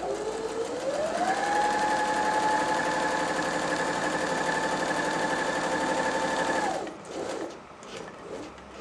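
Janome 525S electric sewing machine stitching a straight stitch through fabric. The motor speeds up over about a second, runs at a steady speed for about five seconds, then slows and stops about seven seconds in.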